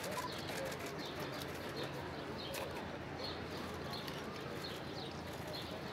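Outdoor ambience of a gathered crowd murmuring, with birds chirping over it in short, high, repeated chirps about twice a second.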